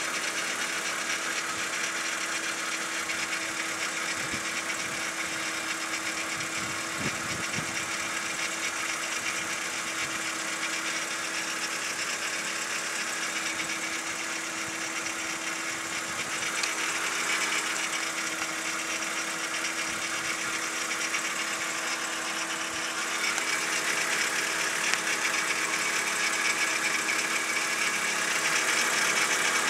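BMW E46 running with a steady rattle over the engine sound, a little louder in the last quarter: the unexplained rattling noise being documented on the car.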